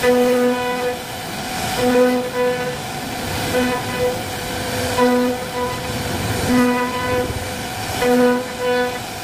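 CNC router spindle carving a wooden panel: a continuous cutting hiss with a buzzing tone that breaks in and out about every one and a half seconds as the bit works through the relief pattern.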